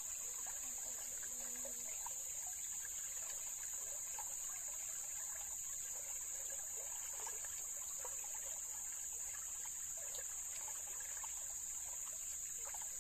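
Shallow stream trickling and babbling over stones, with a steady high-pitched drone of insects over it.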